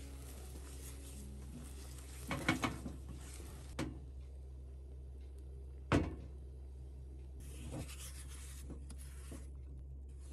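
A spatula stirring and scraping soft-set eggs in a nonstick frying pan, with a few light knocks against the pan. A sharper knock about six seconds in is the loudest sound.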